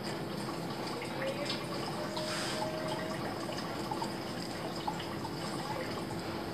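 Straight razor scraping stubble on the upper lip in short strokes, with one brighter scrape about two seconds in, over a steady hum of room noise.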